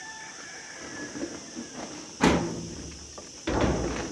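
A metal door banging sharply once about two seconds in, then rattling for about half a second near the end as it is shoved.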